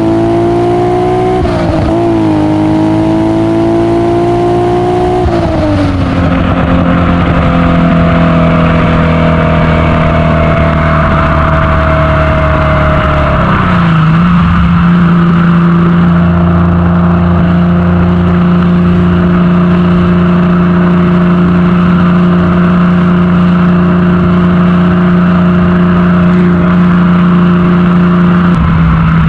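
Modified 3.0-litre Alfa Romeo GTV6 V6 engine and exhaust pulling under way. The revs climb for the first five seconds, then fall at a gear change and ease slowly down. They drop again about halfway through and hold a steady cruising note.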